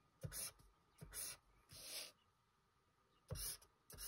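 Felt-tip highlighter drawn across paper in several short strokes, with a couple of light knocks from handling.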